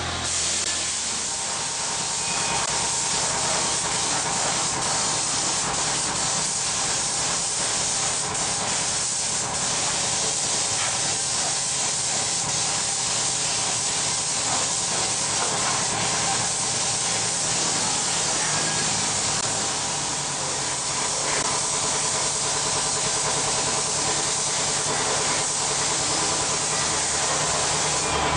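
Compressed-air spray gun with a siphon-feed cup hissing steadily as it sprays paint onto steel chassis parts.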